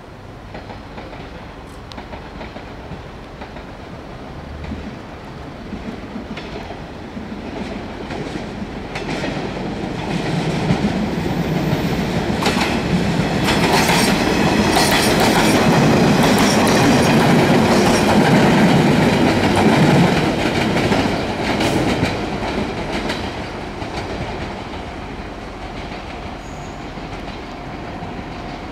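JR 115 series electric multiple unit passing: wheels clicking over the rail joints, growing louder as it approaches, loudest for several seconds as it goes by, then fading as it moves away.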